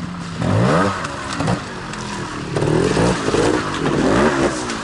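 Trials motorcycle engine revving up and down in short bursts as it climbs a rocky, wet gully section: one rising rev about half a second in, then several quick throttle blips in the second half.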